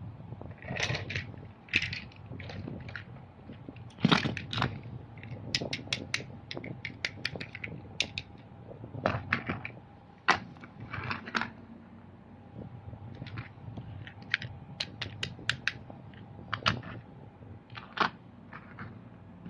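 Small plastic toy trucks being handled and moved about, giving irregular clicks, taps and rattling knocks, some in quick clusters, over a faint steady hum.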